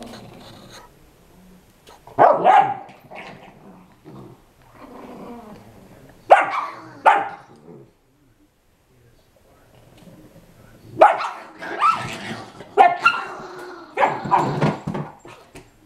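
A Chihuahua and a pitbull puppy play fighting, with bursts of barking and growling: a couple of bursts about two seconds and six seconds in, then a longer run of them from about eleven seconds to near the end.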